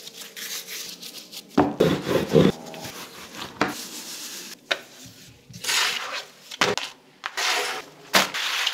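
Flatbread dough being handled and rolled thin with a rolling pin on a floured wooden board: swishing strokes of dough and pin over the wood, with a cluster of knocks about two seconds in and several sharp single knocks.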